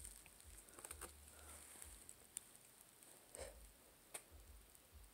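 Near silence, with a few faint taps and soft rustles from a plastic DVD case being handled.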